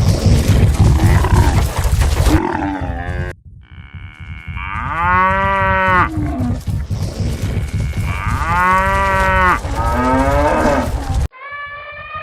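Stampede sound effect: for the first couple of seconds a dense rumble of galloping hooves with grunting calls, then cattle mooing over the running hoofbeats, with two long moos and a shorter one. Near the end it cuts abruptly to a different steady call.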